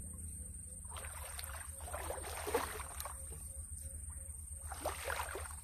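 Shallow ditch water sloshing and splashing as a wader pulls his hands up out of it, in two washes: a longer one about one to three seconds in and a shorter one near five seconds.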